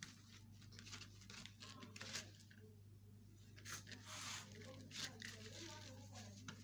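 Faint handling noises, scattered light rustles and clicks, over a steady low hum.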